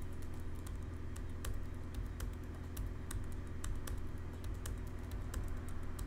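Typing on a computer keyboard: irregular key clicks in quick runs, over a steady low hum.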